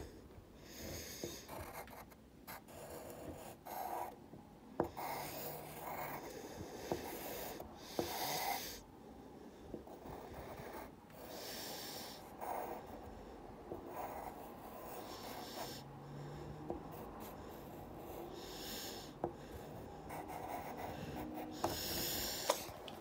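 Pencil scratching on lined notebook paper in short, irregular strokes, each under a second long.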